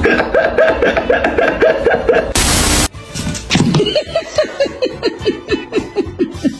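Dubbed laughter sound effect: runs of quick 'ha-ha-ha' pulses, each dropping in pitch, about five a second. About two and a half seconds in, a half-second burst of hiss cuts in, then the laughter starts again.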